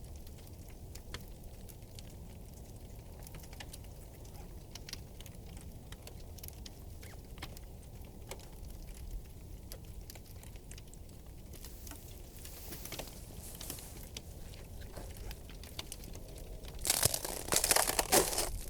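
Frozen river ice cracking: scattered faint sharp ticks and snaps, with a louder burst of crunching near the end.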